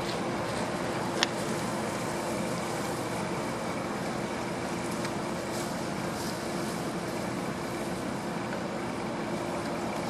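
Hard plastic coolant reservoir being handled and slid forward in its mount: one sharp click about a second in and a few fainter ticks, over a steady background hum with a faint constant tone.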